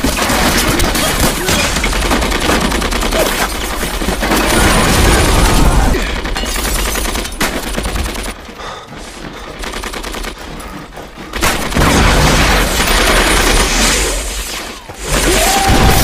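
Battle-scene film soundtrack of dense, continuous gunfire, with machine-gun fire among rifle shots. It dies down for a few seconds about halfway through, then picks up heavily again.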